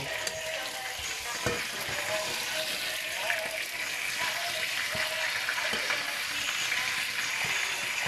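Food sizzling steadily in a frying pan, with a single sharp knock about a second and a half in.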